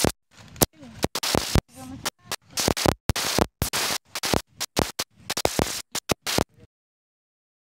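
Broken-up, stuttering recording: short snatches of voices and noise chopped apart by dropouts into dead silence, then the sound cuts out completely near the end.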